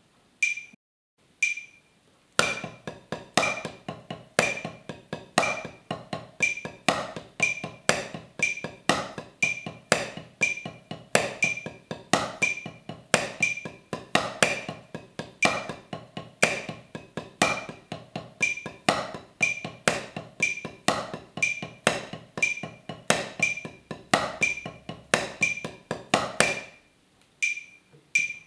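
Wooden drumsticks striking a 12-inch practice pad in a steady run of sixteenth-note paradiddle variations at 60 BPM, with a metronome click keeping the beat. After a short pause near the end the playing starts again faster, at 80 BPM.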